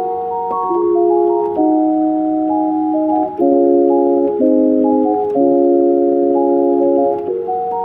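Keyboard playing sustained chords with an organ-like tone, the chords changing every second or so.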